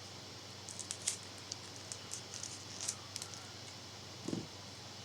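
Foil wrapper of a Pokémon card booster pack crinkling and crackling as it is handled and torn open, in scattered sharp crackles.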